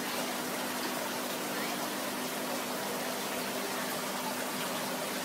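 Aquarium aeration or filter running: a steady rush of bubbling, churning water, with a faint steady hum underneath.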